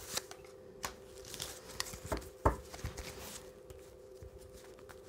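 Oracle cards being handled and laid on a cloth-covered table: a few light taps and short slides of card, with a firmer tap about two and a half seconds in. A faint steady hum runs underneath.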